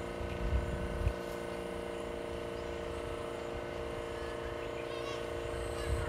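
A steady hum of several held tones that do not change in pitch, over a low, gusty rumble that peaks twice in the first second.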